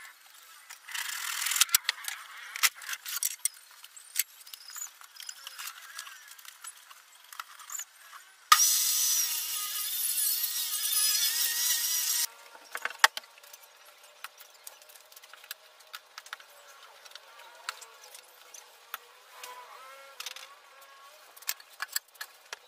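Wooden boards and furniture being handled: scattered knocks and clatters of wood, with a harsh scraping noise of about four seconds in the middle, like a plywood sheet dragged across a wooden surface.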